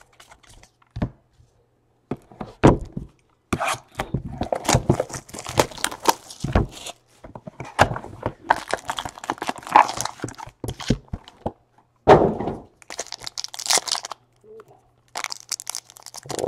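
Panini Elite Draft football card box and foil packs being opened and handled by hand: a few light clicks, then, from a few seconds in, bursts of tearing, crinkling and knocks of cardboard and wrapper.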